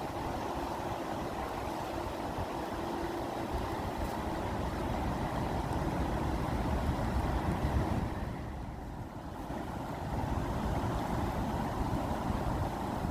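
Steady rushing water with a deep rumble, its higher hiss briefly thinning about nine seconds in.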